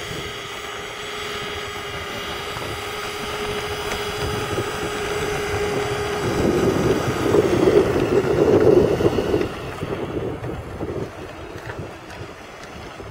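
Twin engines of a radio-controlled Boeing 737 model whining steadily as it rolls along the runway, growing loudest as it passes close about six seconds in and then fading as it moves away. Wind buffets the microphone throughout.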